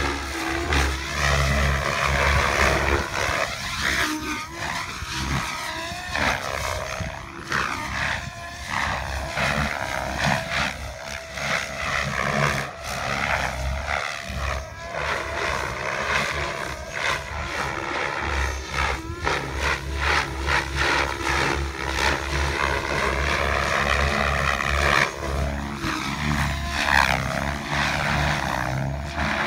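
Electric MSH Prôtos Max V2 RC helicopter flying hard 3D aerobatics: the rotor blades and motor whine keep rising and falling in pitch as it flips and passes, with a low rumble coming and going underneath.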